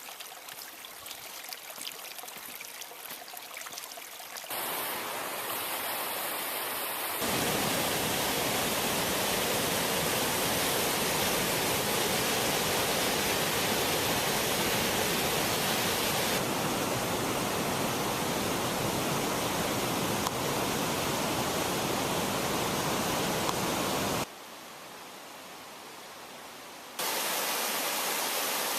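Rushing water of a fast mountain creek fed by glacier runoff: a steady, even rush. It is quieter for the first few seconds, loud through the middle, drops off for a few seconds near the end and then comes back, as separate takes are cut together.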